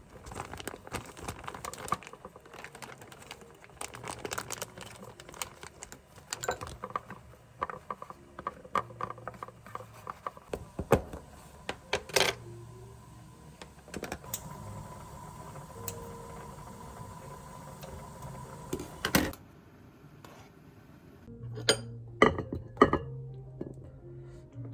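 Irregular clicks and taps of objects being handled, with a few louder knocks.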